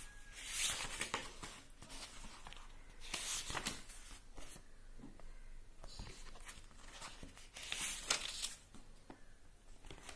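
Paper pages of a children's activity book being turned and handled: three brief rustles, about a second in, around three seconds in, and near eight seconds.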